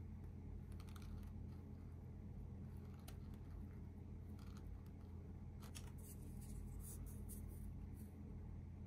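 Faint, scattered crackles and scrapes of a thin wooden boat tray flexing and rubbing in the hands as it is tilted, with light taps of a wooden spoon against it near the end, over a steady low room hum.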